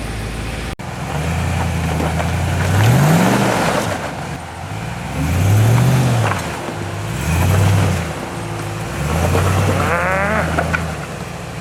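Four-wheel-drive vehicle's engine revving in repeated surges, its pitch rising and falling about four times as it works the throttle over an obstacle, with a brief rising whine near the end.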